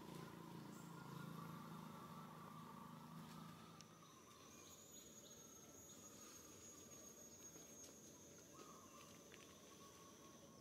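Near silence: a faint, thin, steady high-pitched insect drone comes in about four seconds in, after a low hum fades away.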